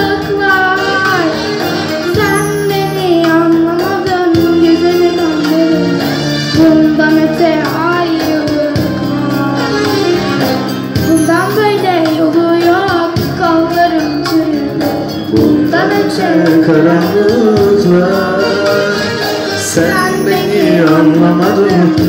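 Live Turkish song: an arranger keyboard plays the backing and the beat through PA speakers, with an ornamented, sliding melody line and a girl singing.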